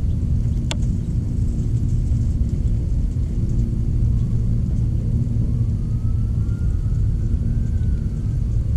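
Steady low rumble with a hum, and a single sharp click about a second in.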